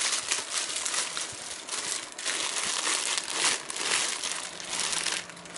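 Clear plastic packaging crinkling and crackling continuously as hands handle and unwrap it, loudness rising and falling with the handling.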